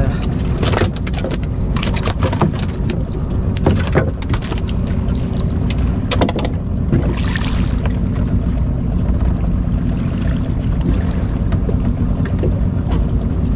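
Boat motor running steadily, with several short knocks and clatter in the first few seconds and a brief hiss about seven seconds in.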